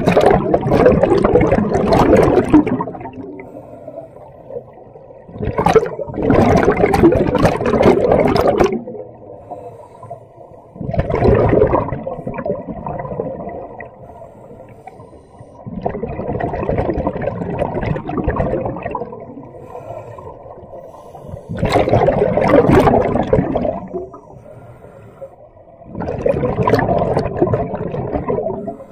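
Scuba diver's exhaled bubbles rushing out of the regulator, in six loud bursts about every five seconds, with quieter gaps between as the diver breathes in.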